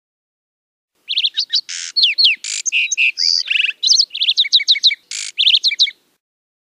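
Lark sparrow singing one long, varied song about a second in and lasting about five seconds: quick down-slurred whistles and trills broken by a few short buzzy notes.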